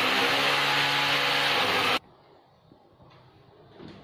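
Corded electric drill running under load as it bores into the wall, a loud steady hiss over a motor hum, which cuts off suddenly about two seconds in.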